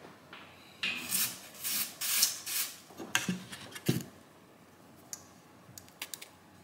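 Workbench handling noises: a printed circuit board slid and repositioned across the bench mat in several scraping strokes, then a knock a little before the middle and a few light clicks as the soldering iron and desoldering braid are set against the board.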